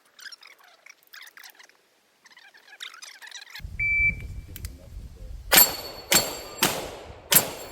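A shot-timer start beep about four seconds in, followed about a second and a half later by a fast string of four gunshots, roughly 0.6 s apart.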